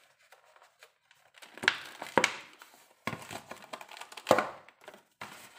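Plastic crinkling and rustling from disposable gloves handling eggs in a clear bowl, with four sharp clacks in the middle of it.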